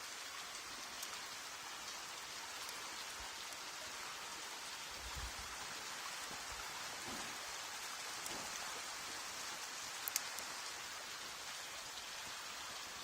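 Heavy rain falling steadily, an even hiss of drops on surfaces, with a sharp click about ten seconds in.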